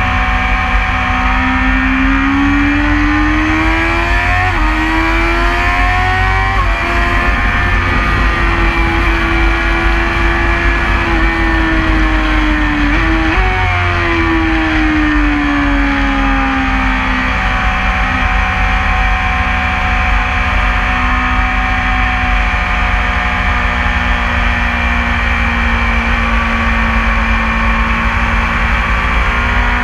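BMW S1000RR inline-four sport-bike engine under way on track, heard from the bike itself. Its note climbs over the first few seconds, steps twice through quick gear changes, and holds high. About halfway it jumps briefly, then falls away, holds lower, and rises again near the end, all over a steady rush of wind.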